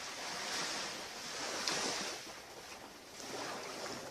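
Waves breaking and washing up on a beach, a rushing sound that swells to its loudest a little under two seconds in, dies back, and swells again a little past three seconds.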